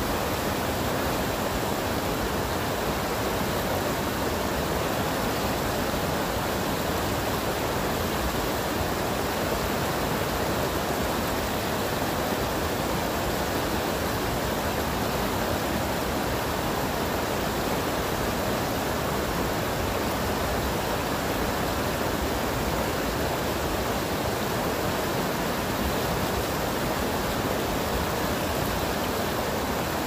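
River rapids: water rushing and churning over and around boulders in a steady, unbroken rush.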